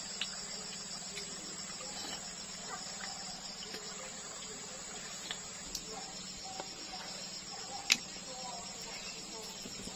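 Insects chirring steadily in a high, fast-pulsing drone, with scattered small clicks and one sharp click about eight seconds in.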